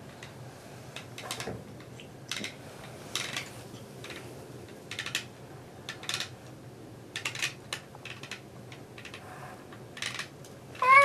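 Small plastic toys clicking and clattering irregularly as they are handled and knocked together. Just before the end a short rising squeal is the loudest sound.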